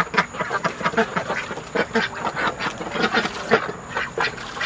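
Domestic ducks quacking over and over, short calls following one another several times a second.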